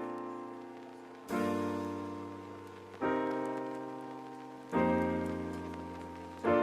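Background piano music: sustained chords struck about every second and a half to two seconds, each fading slowly before the next.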